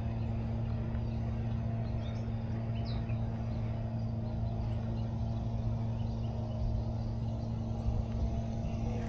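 Steady low mechanical hum held at one constant pitch, with a few faint high chirps over it.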